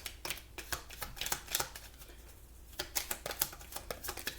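Tarot and oracle cards being handled, shuffled and laid down: a run of quick, irregular card snaps and clicks, pausing briefly about two seconds in before starting again.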